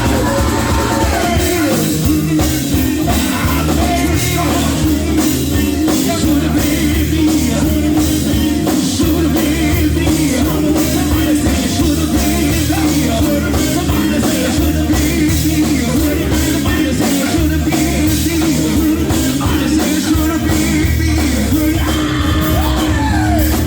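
Live gospel band music with a steady drum beat and a singer's voice over it.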